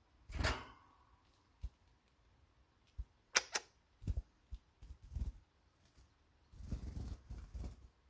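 Pet canary's wings flapping in short fluttering bursts as it lands and balances on a finger, mixed with several sharp clicks.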